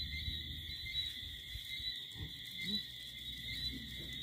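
Steady high-pitched chorus of small calling animals, insects or frogs, ringing continuously at two pitches.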